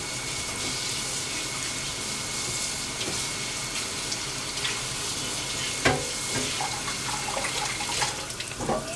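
Kitchen tap running steadily as broccolini is rinsed under the water, with one sharp knock about six seconds in.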